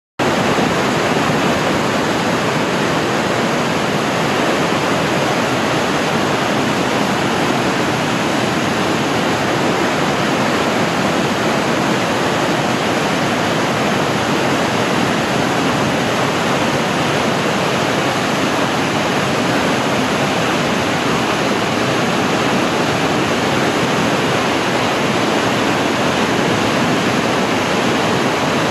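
Whitewater rapids of a river in high flood, grade 4 water at a huge level, with a loud, steady rush that never lets up.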